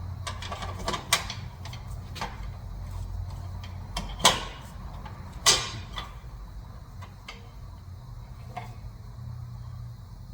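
Several sharp clanks and knocks of parts or tools being handled, the loudest two about four and five and a half seconds in, over a steady low hum.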